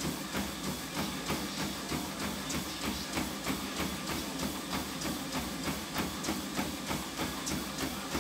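Running footfalls landing on a moving treadmill belt, an even thud about three times a second, over the treadmill's steady running hum.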